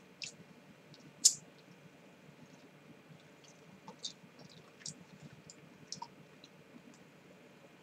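Scattered light clicks and taps from things being handled at a desk, with one sharper click about a second in, over a faint low room hum.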